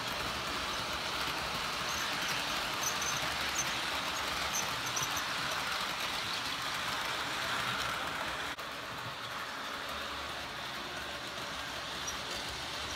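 Model passenger train running on the layout's track: a steady whir of small wheels on the rails, with a brief dip about eight and a half seconds in.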